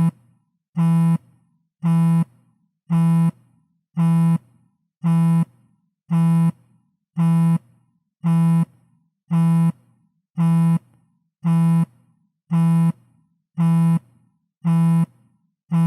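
iPhone vibrating on a table for an incoming call: a low buzz about half a second long, repeating at a steady pace of roughly once a second.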